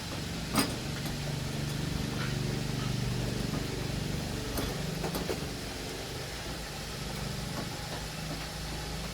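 A steady motor hum that swells for a few seconds and then eases off, with a few light clicks and knocks over it, the sharpest about half a second in.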